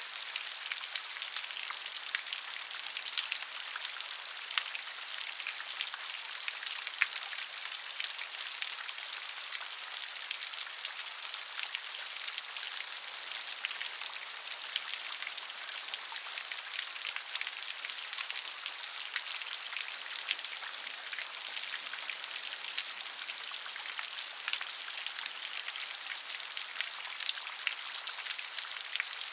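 Steady rain falling, a dense even hiss with many small separate drop patters.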